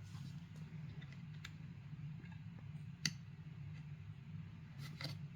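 A few light clicks and taps as a Raspberry Pi Zero board is clamped into the spring-loaded metal jaws of a magnetic soldering helping-hands stand. The sharpest click comes about three seconds in, with a couple more near the end, over a faint steady low hum.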